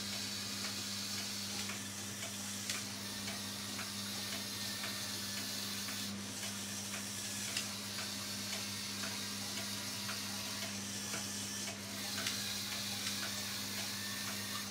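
Lego Technic truck chassis driven by one medium motor, its motor and gear train running with a fine clatter of gear ticks over a steady low hum, cutting out briefly about six seconds in and again near twelve seconds as it manoeuvres.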